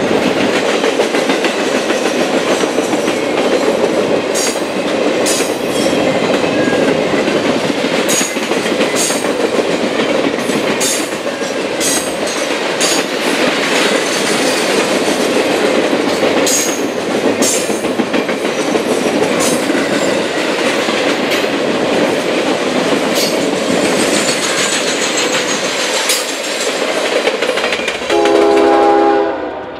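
Triple Crown RoadRailer train rolling past, its highway trailers on rail bogies making a steady rolling noise with irregular wheel clicks over rail joints. Near the end a train horn sounds, louder than the rolling train.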